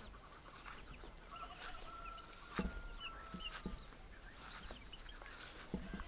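Young poultry peeping in short, high chirps, with a few soft thuds of footsteps on grass. A long, thin whistle runs through the middle.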